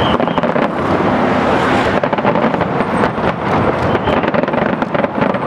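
Aerial fireworks shells bursting in quick succession with crackling, over a dense, steady rumble.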